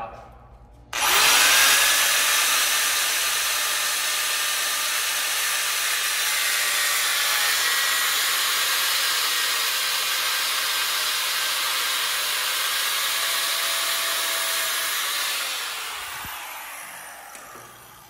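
A high-speed power cutting tool spins up about a second in and cuts steadily through a metal suspension height-sensor link, then winds down and fades out near the end.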